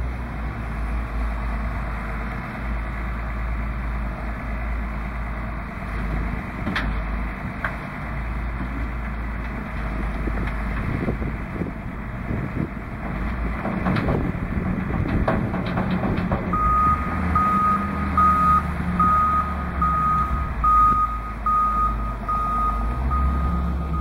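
Heavy diesel engines of a wheel loader and dump truck running, with a stretch of clattering about halfway through as the loader works its load of dirt into the truck. About two-thirds of the way in, a reversing beeper starts, sounding steadily at about one and a half beeps a second.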